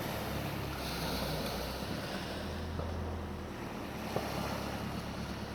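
Wind buffeting the microphone over the wash of sea waves, with a low rumble that eases after about three and a half seconds and a short click about four seconds in.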